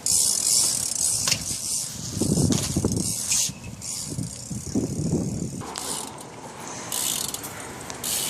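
BMX bike rolling, its rear hub's freewheel ratchet clicking as it coasts.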